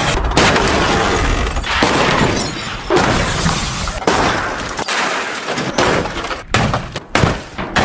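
Loud crashing and shattering, several impacts in quick succession.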